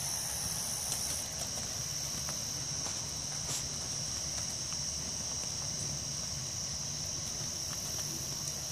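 Night insects, crickets, singing in a steady, unbroken high-pitched chorus.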